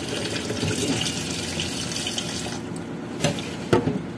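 Water running from a tap, a steady hiss that stops about two and a half seconds in. Then two sharp knocks, as the frying pan is set down on the gas burner.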